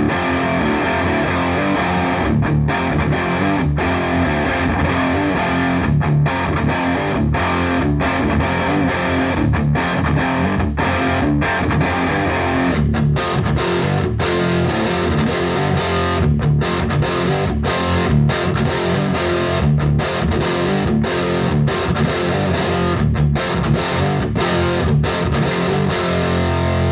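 Les Paul with 490/498 humbuckers played through a Marshall JVM210C tube combo on a crunch channel: a distorted rhythm riff of chords with short breaks between them. About halfway through the tone changes, as an A/B switch moves the guitar between amps.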